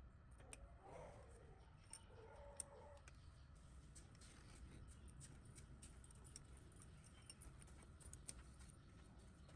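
Near silence: a faint low rumble with scattered light clicks and ticks.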